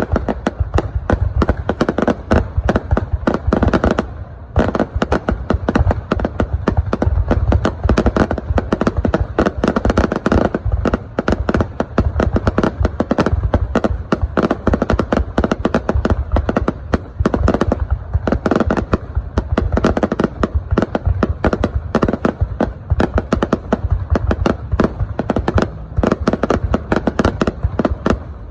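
Aerial fireworks going off in a dense, continuous barrage of rapid bangs and crackling, with a brief lull about four seconds in.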